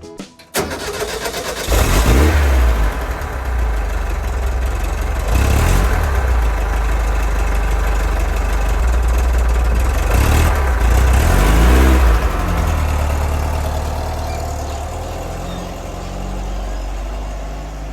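VW Type 2 bus's air-cooled flat-four engine running loudly, its revs rising and falling a few times.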